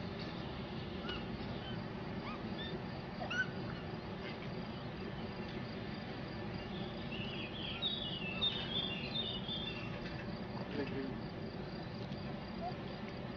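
Scattered short, high chirps over a steady background rumble, with a quick run of denser chirping about seven to nine seconds in.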